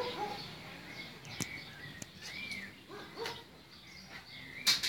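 Small birds chirping now and then, short arched chirps, with a few sharp clicks, the loudest near the end.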